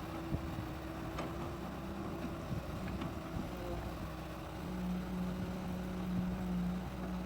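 Excavator's diesel engine running steadily, its hum dropping to a deeper, stronger tone about two-thirds of the way through.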